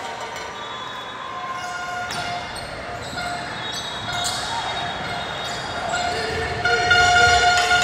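Basketball bouncing on a hardwood gym court, with short squeaks scattered through. A louder held horn-like tone comes in about two-thirds of the way through.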